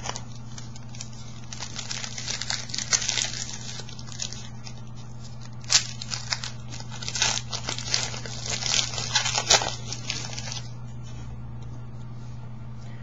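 A trading-card pack's wrapper being torn open and crinkled, with dense crackling and two sharper snaps, going quiet about two and a half seconds before the end. A steady low hum runs underneath.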